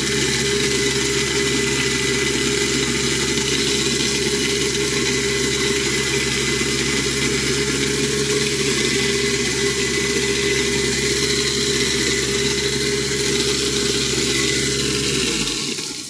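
Garbage disposal motor running steadily under the sink, grinding leafy greens fed down the drain, with tap water pouring into it. About a second before the end it is switched off and the motor winds down, leaving the tap running.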